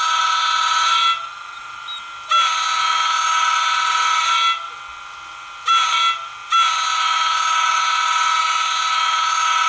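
Sampled multi-chime train horn from the DCC sound decoder of an Atlas N-scale NJ Transit ALP-45DP locomotive, played through its tiny on-board speaker. It sounds in blasts of long, long, short, long, the standard grade-crossing signal.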